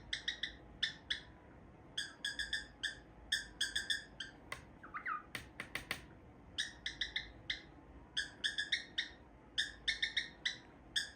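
Cockatiel giving short, sharp chirped notes in quick rhythmic groups, repeating a 'tan ta ta tan tan ta ta' rhythm over and over. A few sharp clicks fall around the middle, with a short swooping whistle just before them.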